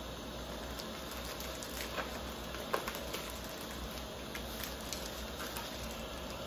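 Clear plastic poultry shrink bag crinkling and rustling as a plucked chicken is bagged and the bag twisted shut. A few sharp crackles stand out over a steady low hum.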